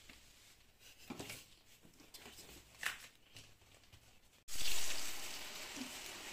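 A few light taps and handling clicks. About four and a half seconds in, a sudden loud sizzle of frying oil, as lentil bara batter goes into hot oil, which settles into steady sizzling.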